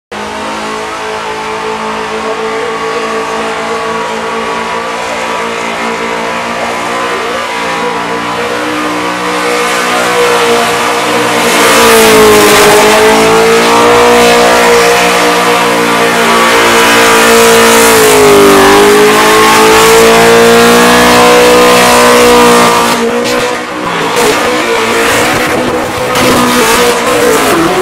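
Holden Commodore ute doing a burnout: the engine is held at high revs while the rear tyres spin and smoke. It grows louder about a third of the way in, and the revs sag and climb back twice in the middle. Near the end the revs are cut and blipped in short bursts.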